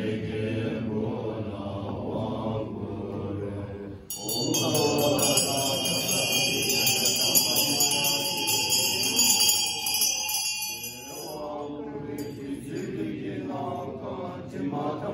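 Tibetan Buddhist monks chanting a liturgy together in low voices. About four seconds in, a ritual hand bell (drilbu) starts ringing, shaken rapidly with a bright shimmering ring over the chant for about seven seconds, then stops.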